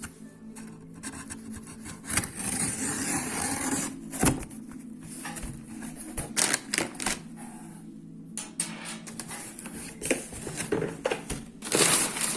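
Handling noise from unboxing a laptop: rubbing and rustling of the packaging with many scattered clicks and knocks, and two longer stretches of rustling, one about two seconds in and one near the end.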